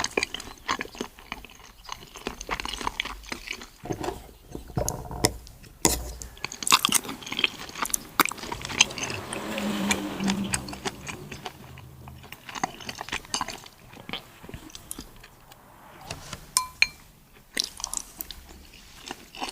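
Close-up eating sounds of a person chewing and biting into seafood, with irregular crunches and sharp clicks, and a busier stretch of wet noise about halfway through.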